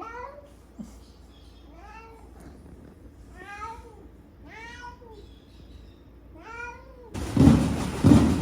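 Domestic cat meowing five times, each meow a short rising-and-falling call about a second or so apart. About seven seconds in, a much louder noisy sound with a pulsing beat cuts in suddenly.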